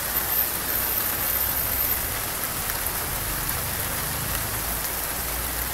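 Heavy rain pouring steadily, an even hiss of water falling on the street and roofs.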